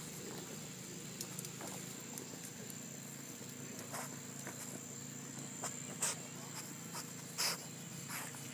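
Boston terrier snorting and sniffing with its nose pushed into the grass as it roots, a handful of short, sharp snorts, the loudest about six and seven and a half seconds in.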